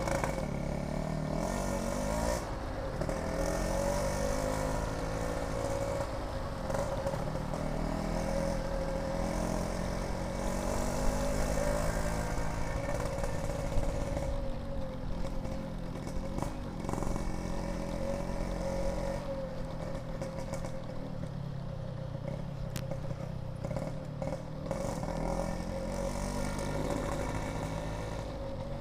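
Yamaha RX-King two-stroke motorcycle engine with a Packing Power PK3 aftermarket exhaust, running on the road. Its pitch rises and falls repeatedly as it accelerates and eases off.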